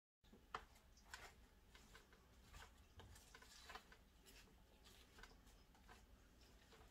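Near silence with faint scattered clicks and taps: chopped onion being pushed down by hand inside a plastic food processor jar.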